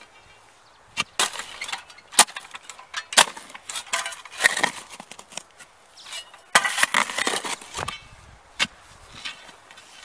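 Hand digging of a pole hole in hard, dry soil: sharp knocks of a long metal digging bar striking the ground, and a spade scraping and scooping out loose earth.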